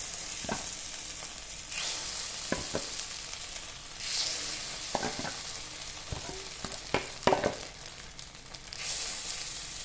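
Egg paddu batter sizzling steadily in the cups of a paddu pan. Several sharp metal clicks of a utensil against the pan are scattered through it.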